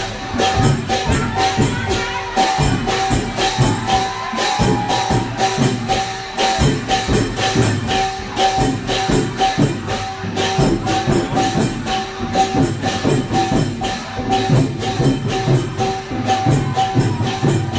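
Lively Thai ordination procession music: a fast, steady percussion beat with jingling percussion and a held note.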